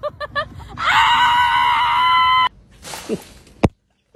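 A dog's long, high-pitched howl, held steady for nearly two seconds after a few short yips, then cut off suddenly.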